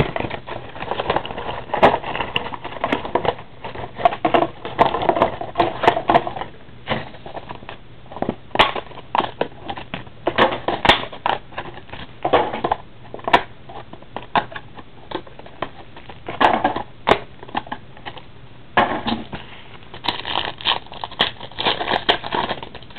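A trading card hobby box and its card packs being opened by hand: irregular rustling and crackling of pack wrappers and cardboard, with many sharp clicks.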